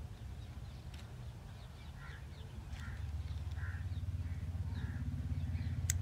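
Crows cawing over and over, about one call every three-quarters of a second from about two seconds in, over a low steady hum that grows louder partway through. A single sharp click comes just before the end.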